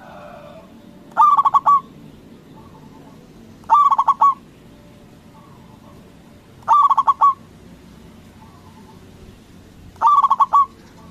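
Zebra dove (perkutut) cooing: four short calls, each a quick stuttering run of coo notes, about one every three seconds.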